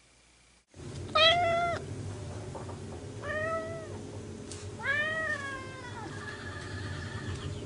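Orange tabby cat meowing three times, the first meow the loudest and the third falling in pitch, over a steady low background rumble that starts about a second in.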